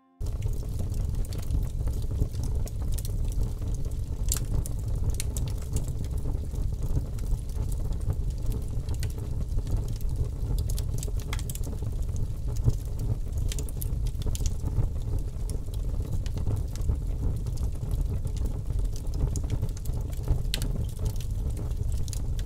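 Bonfire of dry twigs and branches burning, a steady low rumble with sharp crackles and pops every few seconds.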